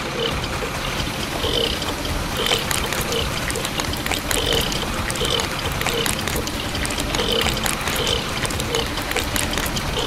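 Wet concrete pouring steadily from a toy concrete mixer's chute onto a plastic bridge deck, a continuous pour and trickle.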